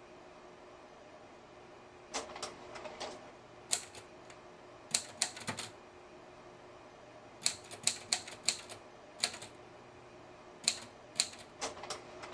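Manual typewriter being typed on: sharp key strikes come in short irregular bursts, starting about two seconds in, with pauses between the groups.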